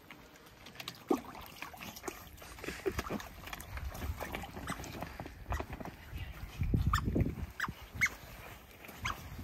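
Two otters playing in a pool: water splashing and sloshing, loudest about seven seconds in, with a few short high chirps near the end.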